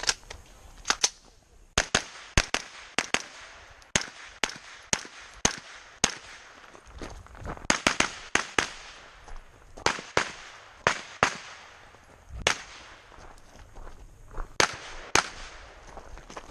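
Pistol-caliber carbine firing a USPSA stage: about thirty sharp shots, mostly in quick pairs, in strings with short pauses between them as the shooter moves to new targets.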